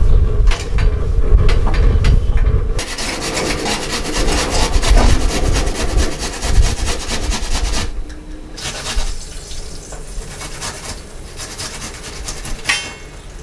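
Low thumps and handling noise, then about five seconds of fast rasping strokes as a vegetable is grated by hand on a flat metal grater into a bowl. After that it is quieter, with one short sharp sound near the end.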